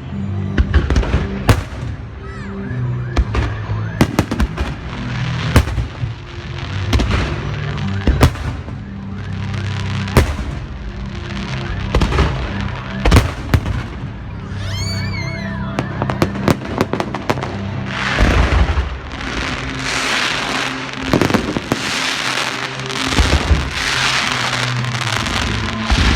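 Beehive fireworks, racks of bottle rockets fired in a barrage at close range: a continuous run of sharp bangs and crackling, with several whistling rockets around the middle and a denser hissing spray of rockets in the last several seconds. Music plays underneath.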